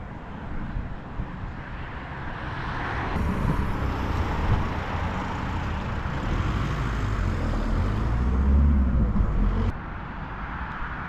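Road traffic passing, a vehicle's tyre and engine noise swelling over several seconds, with wind buffeting the microphone. The rumble drops off suddenly near the end.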